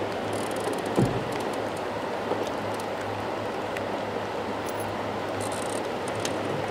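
Small Mercury outboard motor running steadily at idle: an even low hum under a wash of noise, with a single knock about a second in.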